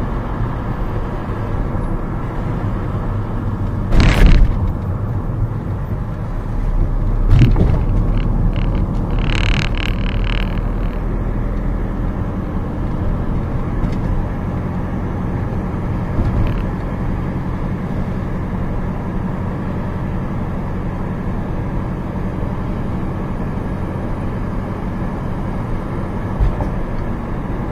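Alfa Romeo 156 being driven along at road speed, heard from inside the cabin: steady engine, tyre and wind noise. There is a short loud rush about four seconds in and a few briefer louder stretches between about seven and ten seconds.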